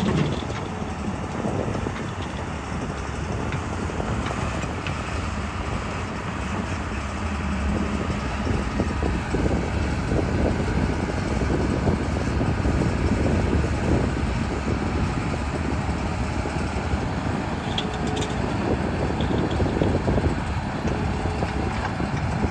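Diesel engine of a JCB 3DX backhoe loader running steadily as it works, a dense low rumble that grows a little louder about eight seconds in.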